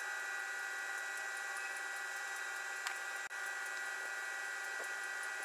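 Steady hum with several high, unchanging whining tones over a faint hiss, with no change in speed or pitch.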